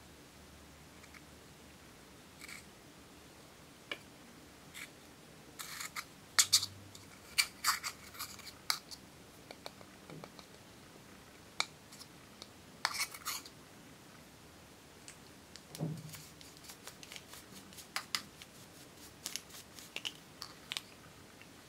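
Small metal spatula scraping and chipping pressed powder makeup out of a plastic compact pan: irregular sharp scratchy clicks in clusters, the busiest flurries in the middle and near the end.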